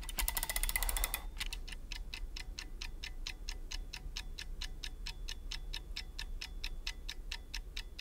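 A fast run of clicks for about a second, then steady, even ticking at about five or six ticks a second.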